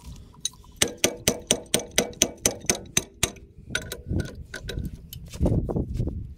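Hammer tapping on the metal of a water separator dump valve and its fittings, about a dozen ringing blows at roughly four a second. After that come softer, irregular clanks and scrapes of a pipe wrench being worked on the valve.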